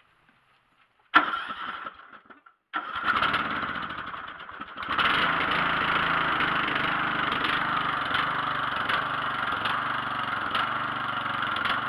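Riding lawn tractor's engine being started cold on a battery that is a little low: the starter turns it over briefly about a second in, tries again, and the engine starts and runs steadily from about five seconds in.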